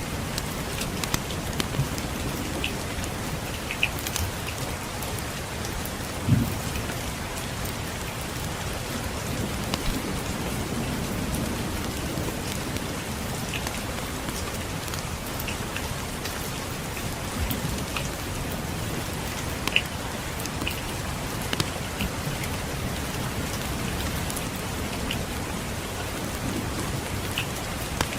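Steady rain pattering on a surface, with scattered crackles and pops from a wood fire in a fireplace; one sharper pop comes about six seconds in and another near twenty seconds. A low rumble of distant thunder swells briefly around ten seconds in.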